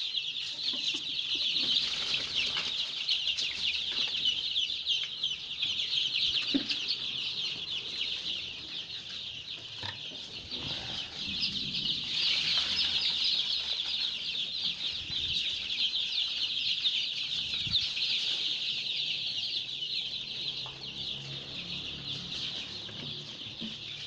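A brood of 12-day-old joper (Ayam Kampung Super) chicks peeping constantly, many high overlapping cheeps at once.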